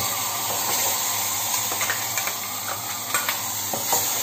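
Ground tomato sizzling as it is poured into hot oil and fried spices in an aluminium pot, a steady hiss. A steel spoon stirring it clicks and scrapes against the pot a few times in the second half.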